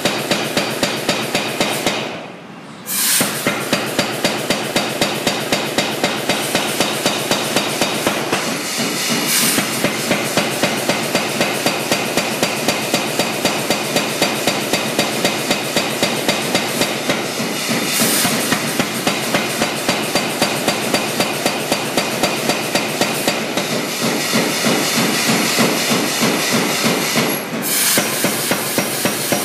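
Blu Max 110 power hammer forging a red-hot bar: a steady run of heavy blows, about two a second, over the machine's constant running noise. The blows stop briefly about two seconds in and dip again near the end.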